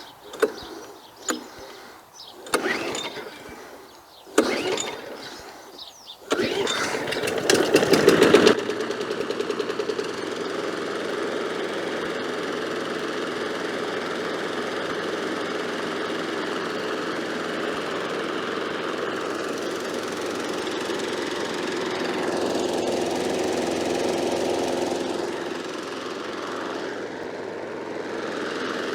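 Murray 22-inch mower's 5 hp Tecumseh Quantum single-cylinder engine starting about six seconds in after a few short noises, running loudly at first and then settling into a steady run. The engine runs a little slow, which the owner thinks needs a few more revs, as it is not blowing the grass bag up as it should.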